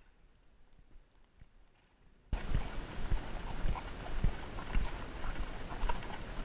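Quiet for about the first two seconds, then suddenly the hoofbeats of horses moving fast on a gravel track: a run of irregular thuds under rattling and rushing noise from the helmet-mounted camera shaking on a smooth riding helmet.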